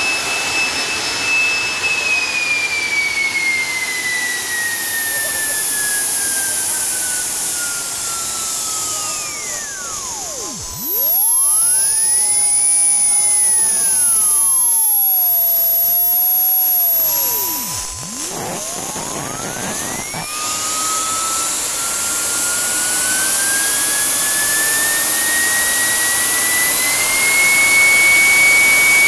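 JetJoe 1400 model jet turbine engine running: a high whine over a steady rush. The whine slides steadily down in pitch over about a dozen seconds as the engine spools down, then climbs back up as it spools up again, reaching about 132,000 rpm near the end.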